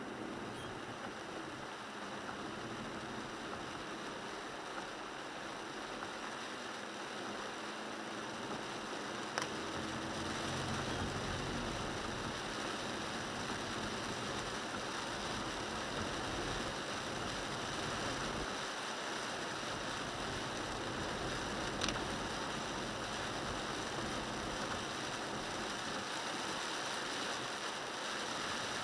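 Steady hiss of tyres on a rain-soaked road and falling rain, heard from inside the cabin of a moving 1998 Toyota 4Runner. It grows a little louder about ten seconds in, and two sharp clicks come about twelve seconds apart.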